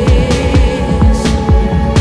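Background electronic music with a steady drum beat and held synth notes.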